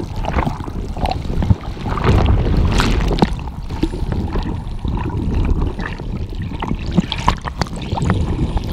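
Churning surf and bubbles rushing and gurgling around a GoPro held in the water, heard through the camera's waterproof housing, with scattered short knocks and clicks.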